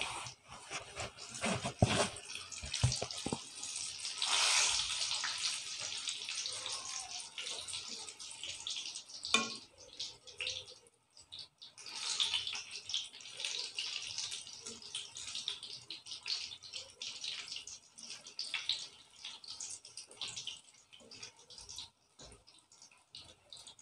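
Chicken chili bites deep-frying in hot oil: a steady crackling sizzle of bubbling oil, with a few sharp clicks near the start.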